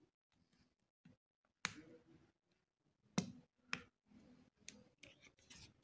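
Fingertips and fingernails pressing and prying at the edge of a Samsung A20 phone's plastic midframe, giving a few faint sharp clicks, the clearest around the middle, with lighter ticks near the end.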